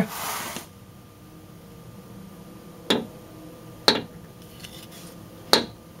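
Three sharp metallic taps in the second half, a second or so apart: a center punch set against the exhaust receiver of an air-cooled VW Beetle, lightly struck to dimple the receiver and lock the tailpipe in place.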